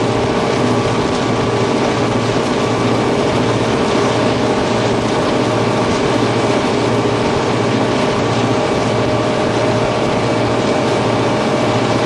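Victorian Railways T-class diesel-electric locomotive's EMD two-stroke diesel engine running hard under load, hauling a loaded ballast train, heard at the open cab window. It is a loud, steady drone with a mechanical clatter and rush of air running through it.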